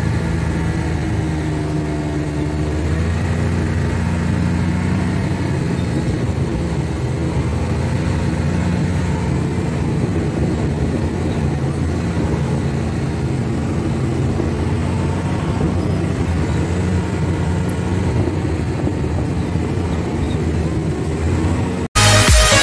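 Snowmobile engine running steadily as it rides along, a constant low drone. Near the end it cuts off abruptly into electronic dance music.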